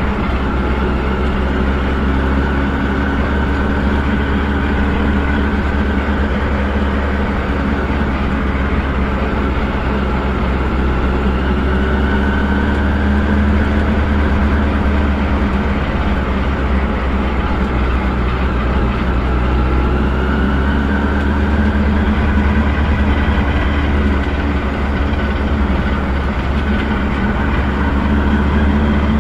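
Fun Boost race car's engine running steadily at speed, heard from inside the cockpit with a heavy low drone and road and wind noise; the engine note shifts only slightly throughout.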